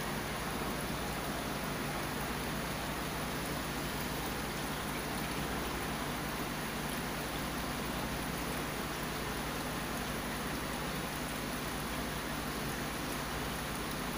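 Steady rush and trickle of water from a saltwater aquarium's filtration, water running down the tank's overflow drains, with a low steady hum underneath.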